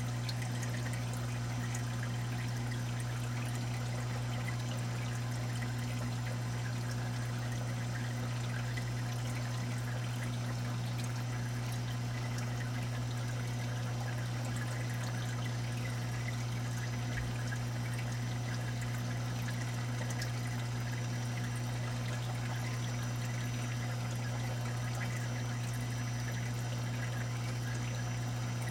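Saltwater aquarium sump and refugium water flow: a steady trickling, splashing pour of water over a constant low hum from the pump.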